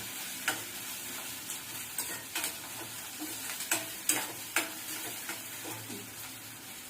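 Chopped onions sizzling as they fry to golden in hot oil and ghee in a pan, a steady hiss broken by irregular clicks and scrapes of a spatula stirring them.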